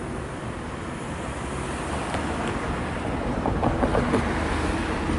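Wind rumbling on the microphone over a steady outdoor hiss of distant road traffic, swelling over the first few seconds, with a few faint taps in the second half.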